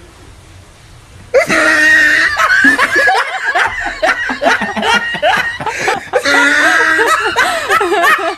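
Quiet at first, then about a second in several people break into loud, sustained laughter that carries on to the end.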